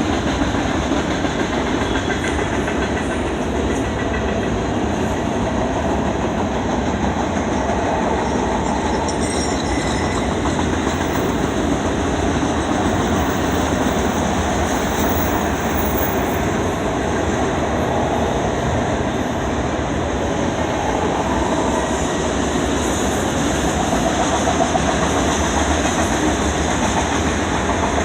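Intermodal freight train's cars rolling past, with steady noise of steel wheels on rail.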